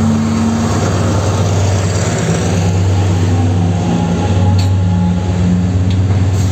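Diesel engine of the DE 36017 diesel-electric locomotive working under load as it pulls a container train away. It gives a deep, loud, steady drone whose pitch shifts slightly as the engine passes close by.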